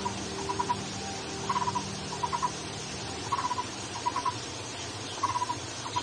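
Barbet calling: pairs of short, rapid rattling notes, repeated about every two seconds.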